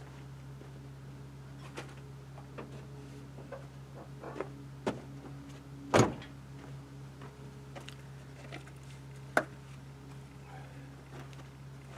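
Scattered knocks and clinks of tools and metal wheel parts being handled during work on a forklift's split-rim tyre, the loudest knock about six seconds in and another sharp one near nine and a half seconds, over a steady low hum.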